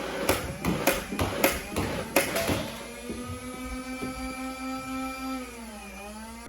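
Rapid clicking, about four or five a second, then a small motor's steady whine that drops in pitch near the end.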